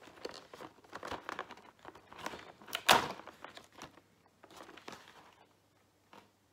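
Cardboard door of a Kinder advent calendar being pushed in and torn open, with crinkling of cardboard and foil around the wrapped chocolate egg inside. A string of short crackles, with one sharp crack about three seconds in as the loudest sound.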